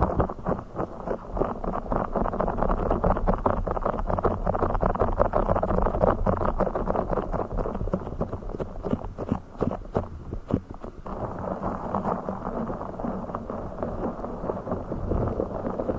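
Blue fish item being scratched and rubbed, making a dense crackle of fast, small clicks and scratches. About eleven seconds in, it turns into a smoother, softer rubbing.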